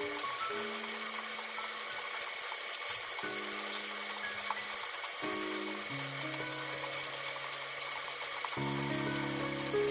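Food sizzling in oil in a frying pan, a steady fine crackle, under soft background music of held chords that change every second or two.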